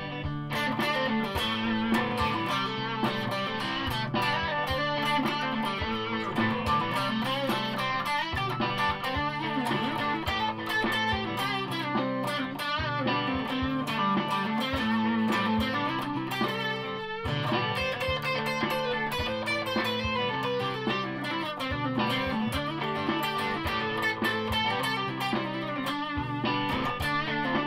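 Amplified two-pickup Stratocaster electric guitar playing a continuous riff of quickly picked notes and chords, with a brief break about 17 seconds in.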